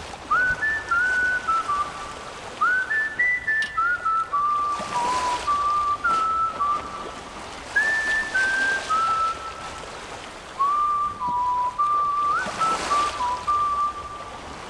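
A whistled tune: one clear melody line of held notes, many of them sliding up into pitch, playing as music. Twice a soft swell of hiss rises under it, about five seconds in and near the end.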